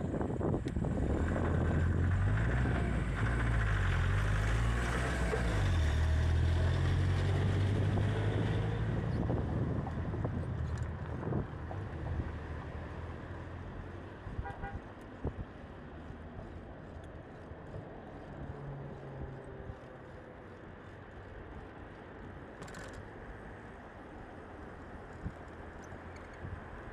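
Street traffic: a motor vehicle's engine passes close for the first several seconds, its pitch shifting as it goes by, then the road noise settles to a quieter steady hum. A short run of faint beeps comes about halfway through.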